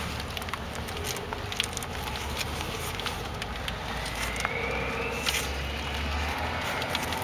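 Scattered light metallic clicks and taps from brake parts being handled, as a new rear brake rotor is fitted onto the wheel hub, over a steady low background hum.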